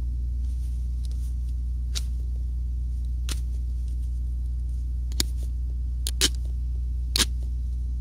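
Sharp clicks, about six of them with a close pair past the middle, from handling and working at a television's degaussing coil to check its wire, over a steady low hum.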